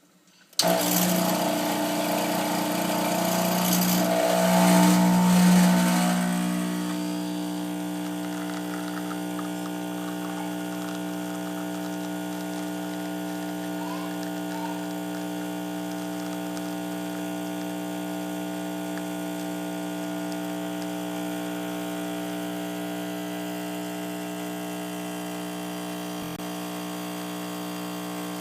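Espresso machine's pump running while a shot is pulled. It starts abruptly, is louder for the first six seconds or so, then settles into a steady, quieter electric hum.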